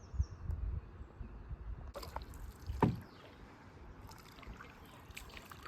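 Canoe being paddled on a lake: small splashes and drips of water with scattered sharp knocks, the loudest nearly three seconds in, over a low rumble during the first two seconds.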